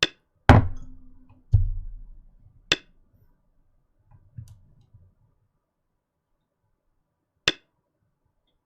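Sharp clicks and knocks at a desk: five in all, four of them in the first three seconds and one more near the end. The second and third carry a low thud that dies away over about a second.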